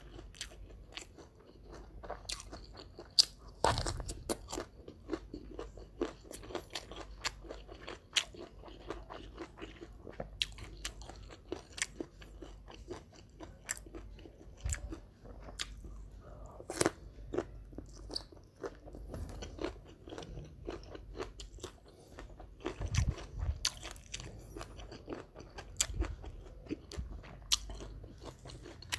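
Close-miked eating of a pecel lele meal of fried catfish, rice and raw vegetables: chewing with many irregular sharp crunches and a few louder bites.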